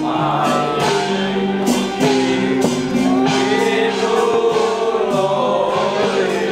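Background music with sustained choir-like voices holding long notes in several layers.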